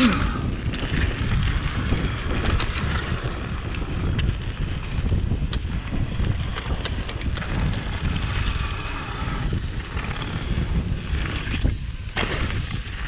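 Wind buffeting the microphone while a mountain bike runs fast downhill over a dirt trail: a steady rumble from the tyres and terrain, broken by frequent sharp clicks and knocks.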